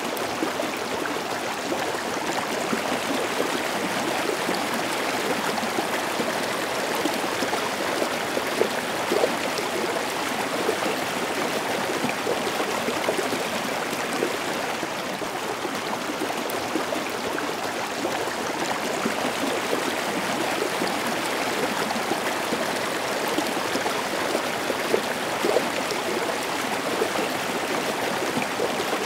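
Small rocky stream tumbling down a stepped cascade: a steady rush of splashing water with small irregular splashes through it.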